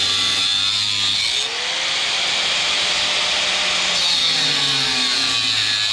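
Power saw cutting through the wooden board of a kayak transom, running steadily under load.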